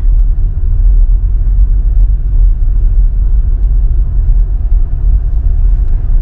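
Steady low rumble of a car moving slowly in traffic, heard from inside the cabin.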